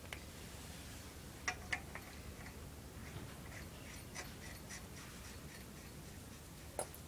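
A few sharp clicks and light taps of hard objects, two close together about a second and a half in, scattered fainter ticks after, and one more near the end, over a low steady hum.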